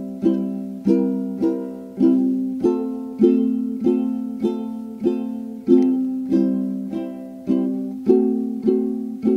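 Background music: a plucked string instrument, ukulele-like, picking a steady tune of notes that each ring and fade, a little under two a second.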